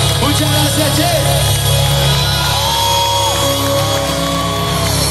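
Live rock band playing loudly through a stadium sound system, with sung melody over the band, heard from inside the crowd.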